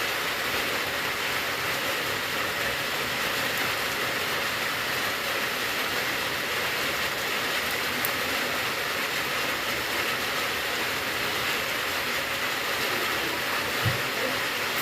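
Steady rain falling, an even unbroken hiss, with one brief low knock near the end.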